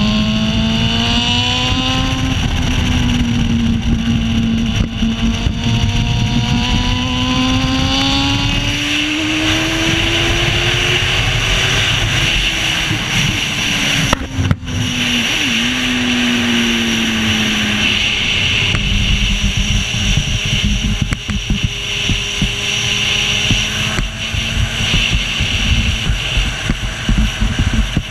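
Racing sidecar outfit's engine running hard at speed on a race track, its pitch rising and falling several times through the corners, with a sharp drop and recovery about halfway through. Heavy low rumble and wind rush from riding at speed.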